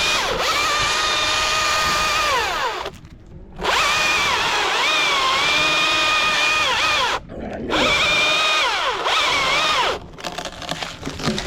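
Two-stroke chainsaw running at high revs, the pitch sagging and recovering as the chain cuts into wood. The throttle is let off briefly twice, about 3 and 7 seconds in, and the running turns uneven near the end.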